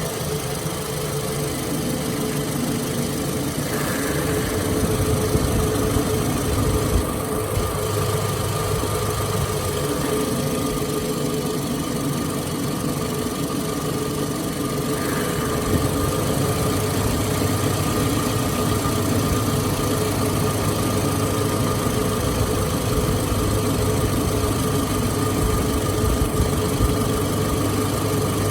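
Toyota 2AZ-FE 2.4-litre four-cylinder engine of a 2006 RAV4 idling steadily.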